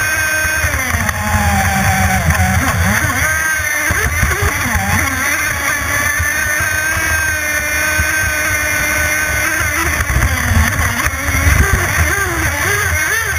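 CMB91RS two-stroke nitro methanol engine of a radio-controlled offshore race boat running at racing speed, its pitch wavering up and down as the throttle changes through the turns, over the rush of water and spray against the hull.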